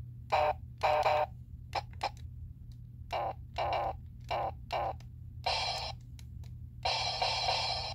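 1996 Sailor Star Yell toy playing electronic sound effects through its small speaker as its buttons are pressed. The sounds come as short bursts, mostly in quick pairs, then two longer ones near the end.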